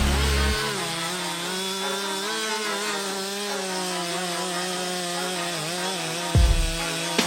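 Chainsaw engine running steadily under load, cutting through wood, its pitch wavering slightly, with a low thump about six and a half seconds in.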